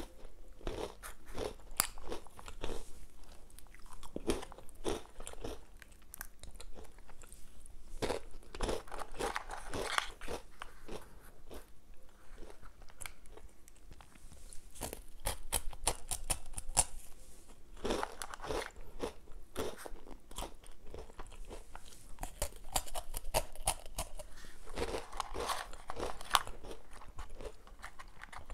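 Crunching and chewing of Nutella & Go breadsticks dipped in chocolate hazelnut spread. Irregular crisp crackles run throughout, coming thickest in a few stretches.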